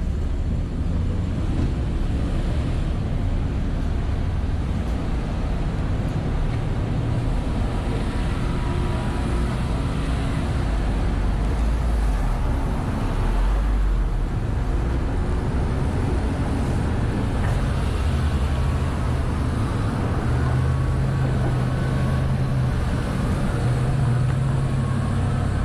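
Steady low rumble of road traffic, with an engine hum that grows stronger in the second half.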